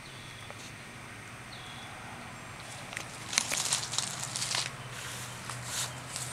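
Irregular crackling and rustling, starting about three seconds in, over a faint low steady hum.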